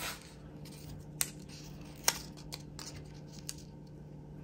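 Quiet handling of planner stickers and paper, with two sharp clicks about one and two seconds in and a few softer ticks.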